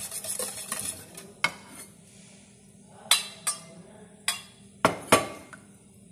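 Kitchen utensils and dishes clinking and knocking against a mixing bowl as dry ingredients are added to flour. A light rustle of handling comes in the first second, then about six sharp, irregular clinks, two of them close together near the end.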